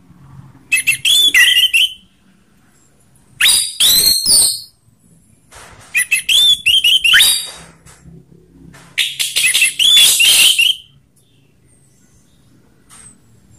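Orange-headed thrush singing: four loud phrases of rapid, varied whistled notes, each one to two seconds long, with short pauses between.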